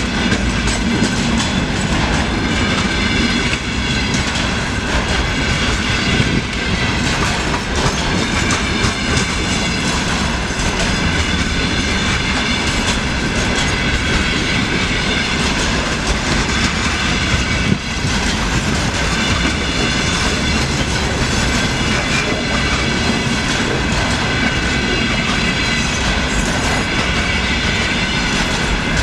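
Container freight train rolling slowly past, its wagon wheels clacking over the rail joints with a continuous rumble and a steady high-pitched whine from the wheels.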